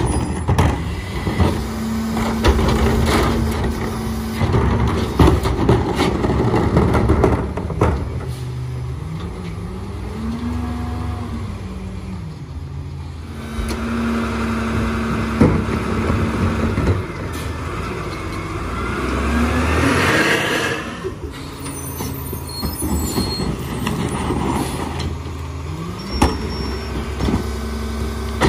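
Peterbilt 348 rear-load garbage truck at work: its diesel engine throttles up and drops back several times as the EZ-Pack packer cycles, with scattered clanks and knocks of refuse and containers. About twenty seconds in there is a rising whine.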